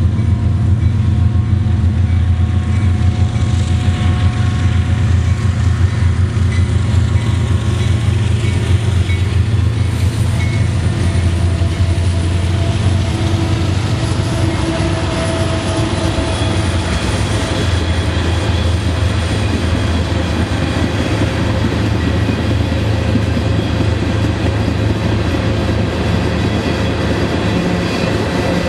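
Freight train of empty tank cars rolling past, a steady heavy rumble with rail and wheel noise. A faint high whine rises and falls in the middle.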